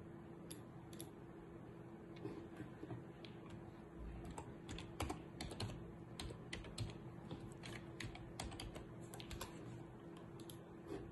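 Typing on a computer keyboard: a run of irregular keystrokes, thickest in the middle stretch, over a faint steady hum.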